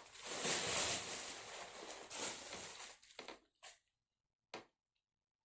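Handling noise of packaging being rustled and shifted for about three seconds, then three short separate rustles or clicks.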